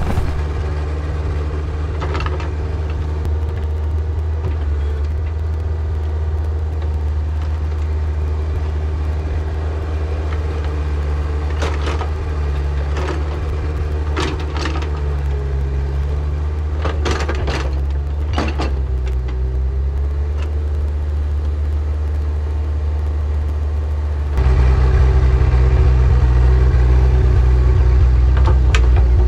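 Yanmar ViO50 mini excavator's diesel engine running steadily under digging load, with a wavering hydraulic whine and a few short knocks of the bucket working the soil. About 24 seconds in, the engine sound steps up abruptly louder.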